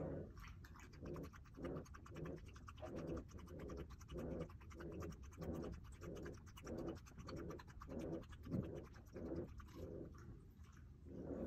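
Shiba Inu lapping liquid from a bowl, played back sped up: a quick run of small wet clicks with a soft, regular pulse about twice a second.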